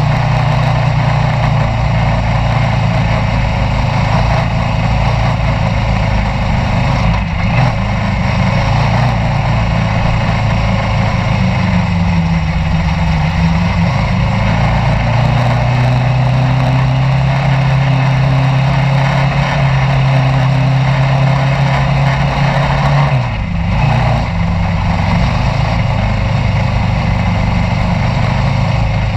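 Onboard sound of a single-seat off-road racing buggy's engine running hard on a dirt track, its pitch rising and falling with the throttle and dipping briefly about 23 seconds in, over steady wind and track noise in the open, netted cockpit.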